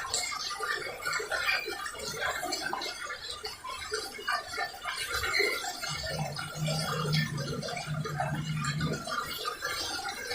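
Airport toilet stuck in its flush, water running and trickling into the bowl without stopping. A steady low hum joins for a few seconds past the middle.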